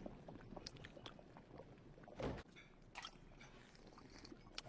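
Faint sips of soup taken from a spoon, with a few light clicks; the loudest is a short noisy sip a little past two seconds in.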